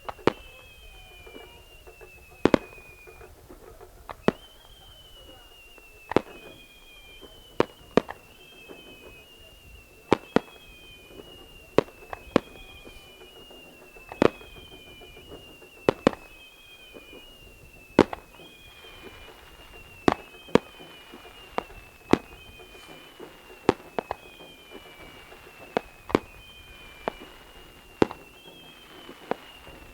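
Fireworks display: sharp single bangs at uneven intervals, some in quick pairs. A high whistle falling in pitch repeats about every two seconds alongside them.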